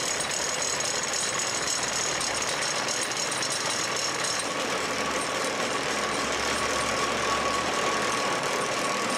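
Mobile salt-mine cutting machine running its long chainsaw-like toothed blade through the salt wall: a steady mechanical grinding and rattle, with a steady whine coming in about halfway through.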